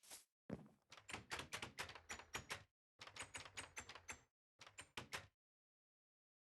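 Rapid runs of sharp clicks, like typing on a keyboard, in three bursts about eight clicks a second, stopping near the end.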